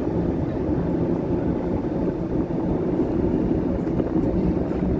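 Steady low rumble of trains and road traffic crossing the Sydney Harbour Bridge deck overhead, with wind buffeting the microphone.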